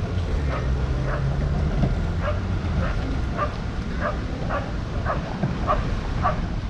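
A dog yipping over and over, about two short yips a second, over a low rumble that fades after about two seconds.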